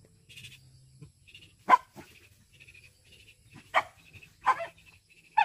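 A dog barking four times, short sharp barks spaced a second or so apart.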